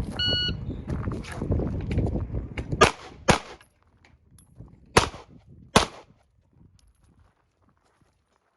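Shot timer's short start beep, then four handgun shots in two pairs, each pair about half a second apart and the second pair about a second and a half after the first.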